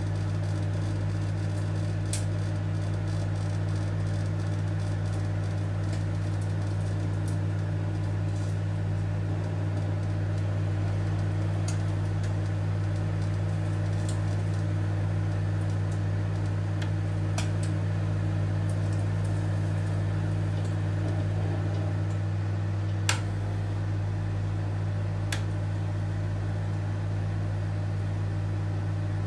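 Older model microwave oven running: a steady low hum, with a few faint clicks and one sharper click about 23 seconds in.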